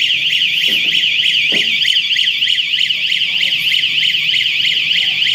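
Warbling electronic alarm from the red warning beacon on a PE protective film coating machine, its pitch sweeping up and down about four to five times a second without a break. It signals that the film roll has reached its set length.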